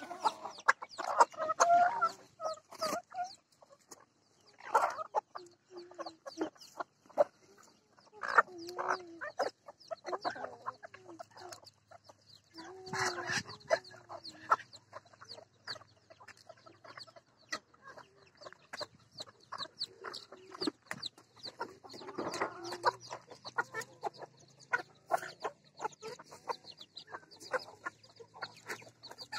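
A flock of Pekin bantam chickens clucking as they feed, in short calls that come and go. Many short clicks are scattered throughout.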